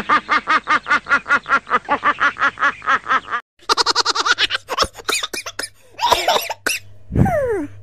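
Meme laughing sound effects: a man's fast, rhythmic cackle at about eight pulses a second for roughly three and a half seconds, then shorter bursts of giggling laughter, ending with a laugh that slides down in pitch.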